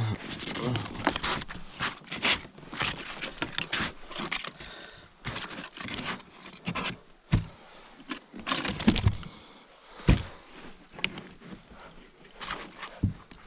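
Irregular knocks, scrapes and rattles of a measuring ruler and fishing gear being handled against a plastic kayak deck, with a few louder knocks past the middle.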